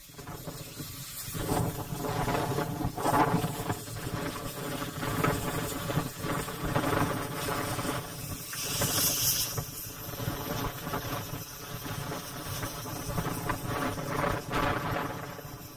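Narrow-gauge steam locomotive moving slowly, with slow, uneven chuffs and a thin squeal underneath. A short burst of steam hiss comes about eight seconds in.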